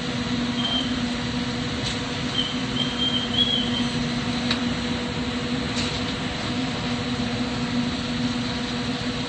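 Steady rushing noise of an oxygen-propane glassworking torch burning, with a constant low hum underneath. A few faint high chirps and light ticks come and go.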